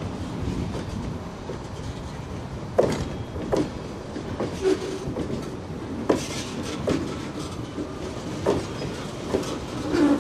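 High-sided open-top freight cars being shoved slowly past at close range: a low rolling rumble, with the wheels clicking in pairs over rail joints every couple of seconds as each truck crosses.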